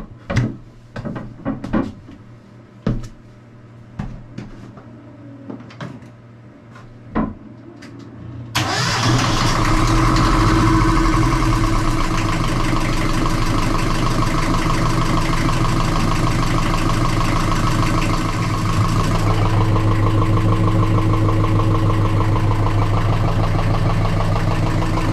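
A few clicks and knocks, then about eight seconds in the boat's inboard marine diesel engine starts and runs steadily. Its note shifts a little about halfway through.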